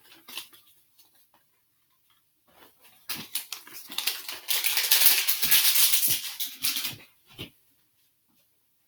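Packaging being unwrapped and crumpled by hand: faint handling clicks, then about four seconds of dense crinkling and crackling starting about three seconds in, which stops near the end.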